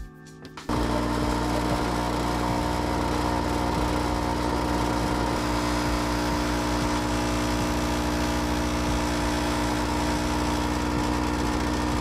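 Budget home espresso machine's pump buzzing steadily as it pulls a shot, the machine vibrating a lot; the buzz starts abruptly just under a second in.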